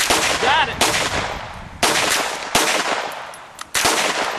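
Five pistol shots from a semi-automatic handgun, fired one at a time about a second apart, each followed by a short trailing echo.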